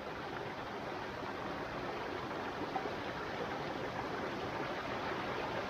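Shallow rocky forest stream rushing steadily over boulders and small cascades.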